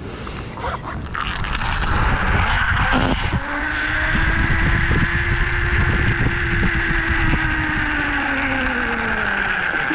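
Zipline trolley's pulleys running along the steel cable: a whine that holds a steady pitch from a few seconds in and falls near the end as the ride slows. Wind rushes over the microphone throughout.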